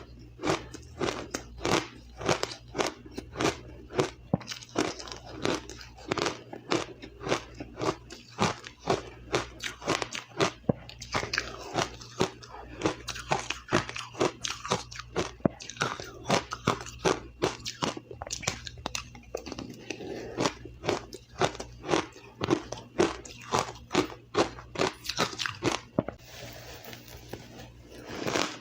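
Ice being bitten and chewed close to the microphone: a steady run of sharp crunches, two or three a second, easing off briefly near the end.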